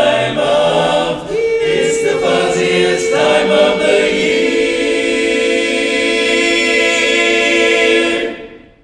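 Men's barbershop chorus singing a cappella, settling about a second in onto a long held final chord that rings for several seconds and then fades out near the end.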